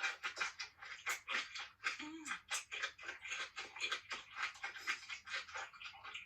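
Close-miked mukbang eating sounds: a person chewing and crunching through lobster, several sharp mouth clicks and crackles a second. About two seconds in comes a brief hummed note.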